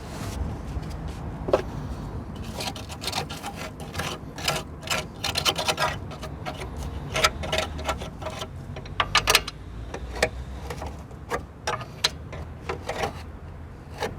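Hand tools clicking and clinking against metal car parts in irregular clusters, some clicks with a brief metallic ring.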